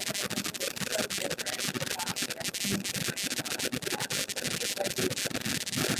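Trading cards being handled and slid against one another: continuous papery rubbing and scratching with many small clicks.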